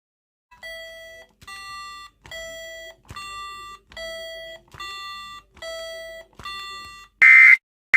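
Synthesized emergency-alert attention tones: eight electronic chimes under a second each, alternating between a low and a higher pitch. About seven seconds in, a much louder, harsh buzzing alarm tone starts beeping in short bursts.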